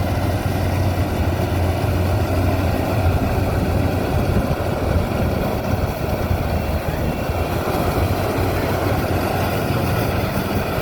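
Maxxi Bimo 102 rice combine harvester running steadily, with a strong low engine hum.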